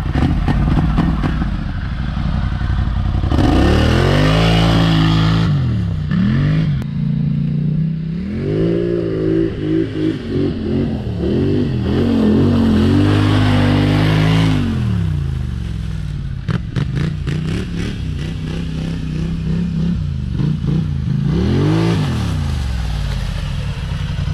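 Polaris Scrambler XP 1000 ATV's twin-cylinder engine revving up and down through several throttle surges as it is ridden through mud, the pitch rising and falling again and again. Spells of hiss and some clattering come between the revs.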